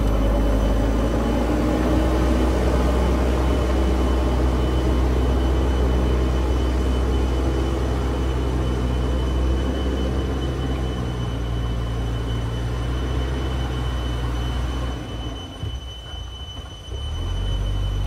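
JCB backhoe loader's diesel engine running steadily under load as the machine drives and pushes soil with its front loader bucket, a deep steady rumble that dips about fifteen seconds in and then picks back up.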